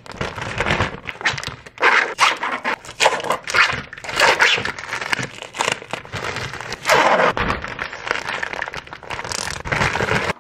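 Thin plastic string-cheese wrappers crinkling and tearing as they are peeled off the cheese sticks, in irregular bursts, with a plastic zip-top bag rustling.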